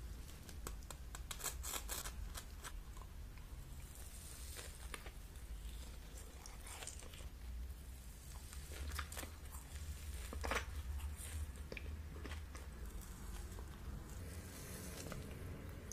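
Close-miked ASMR eating sounds of a soft, fluffy candy being torn apart and eaten: quiet tearing and crackling, with scattered sharp clicks, over a steady low hum.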